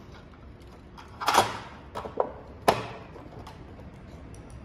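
The cover of a T8 fluorescent tube fixture being fitted back onto its batten: a scraping rub about a second in, then a few light clicks and one sharper clack as it seats.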